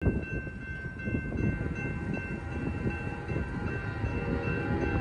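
A distant locomotive horn holding a steady chord from a train that is not yet in sight, over a low, uneven rumble.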